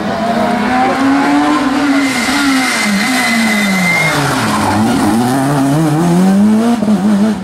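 Fiat Grande Punto rally car at full throttle on a stage: the engine revs rise and fall through gear changes, drop low as it slows for a corner about four to five seconds in, then climb again as it accelerates away. A thin high whine holds for a couple of seconds partway through.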